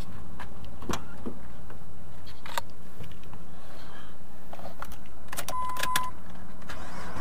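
Clicks and knocks of getting into a car's driver's seat and handling the ignition keys, with keys jangling, over a steady low rumble. A short steady electronic chime tone sounds about five and a half seconds in as the ignition is switched on.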